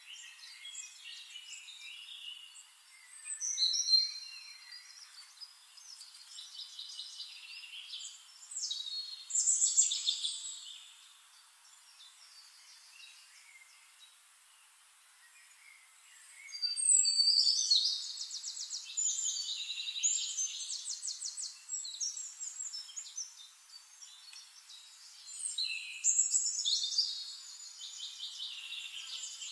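Birdsong: high chirps and fast trills coming in several loud bursts, with a quieter lull near the middle.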